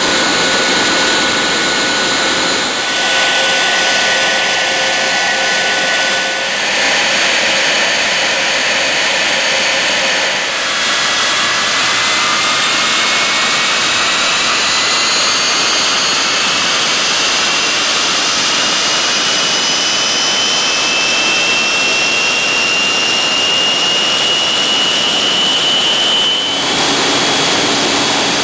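Westinghouse J34 axial-flow turbojet engine running on a ground test stand: a loud jet roar with a high whine over it. From about a third of the way in, the whine rises steadily in pitch for some fifteen seconds as the engine speeds up. The sound jumps abruptly at a few points.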